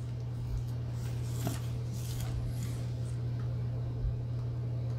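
Faint handling noises of a Ricoh FF-3 autofocus compact film camera being picked up and turned over in the hands: a few soft clicks and rustles over a steady low hum.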